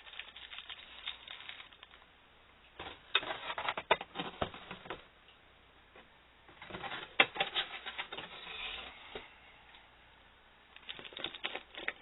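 Hands handling a small plastic object, most likely the lamp: bouts of quick small clicks and rustles, with short quiet gaps between them.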